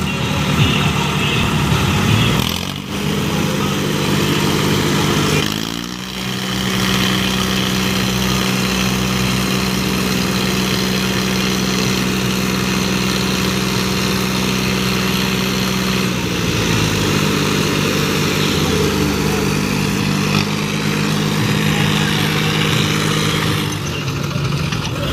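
Diesel tractor engines running hard under load as they haul a tractor stuck deep in mud on a tow chain. The revs climb twice in the first few seconds, hold high and steady for about ten seconds, then drop back and run unevenly.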